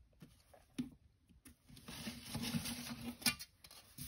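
Clear plastic set square sliding and scraping across a sheet of paper as it is repositioned: a soft rustling scrape for a couple of seconds, ending in a light clack as it is set down.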